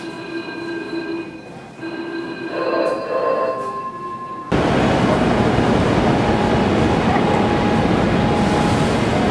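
Steady rumble and hiss of a moving vehicle's interior, starting abruptly about halfway through and loudest from then on. Before it, quieter room sound with a few steady tones that come and go.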